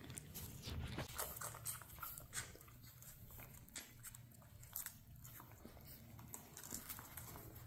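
Dachshund puppies suckling from their standing mother: faint, irregular wet smacking and clicking.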